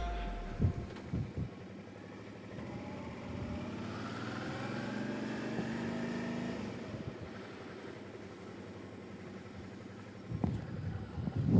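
Suzuki V-Strom 650's V-twin engine pulling, its note rising as the bike accelerates and then settling back to a steady cruise. Gusts of wind noise hit the microphone near the end.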